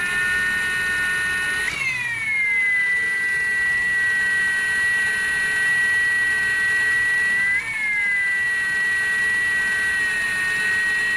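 Ridgid R86211 18V Octane impact wrench running free on its speed 3 setting: a steady high motor whine that briefly jumps up in pitch about two seconds in and again near eight seconds, then settles back. It is stuck running slower than it should, and these short surges are the wavering the owner points out.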